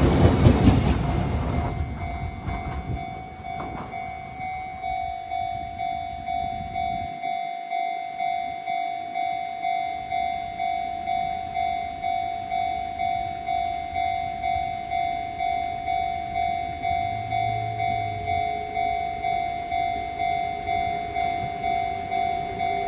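A train passes loudly for the first two seconds and fades. A Japanese level-crossing warning bell keeps ringing with an even "kan-kan" about twice a second.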